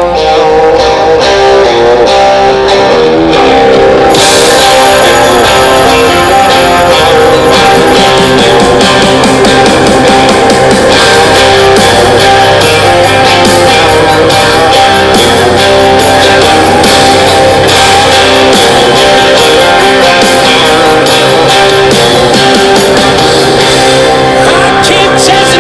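Background music: a guitar-led song that gets fuller about four seconds in, when more of the band comes in.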